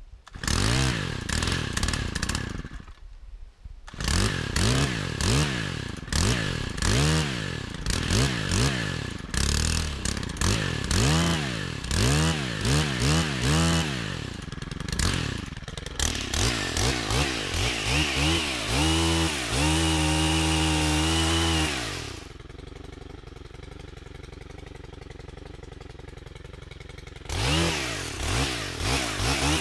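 Two-stroke gas chainsaw revved up and down again and again, the engine rising and falling in pitch with each blip of the throttle. About three quarters of the way in it is held at high speed for a few seconds, then drops to a quieter idle before it revs up again near the end.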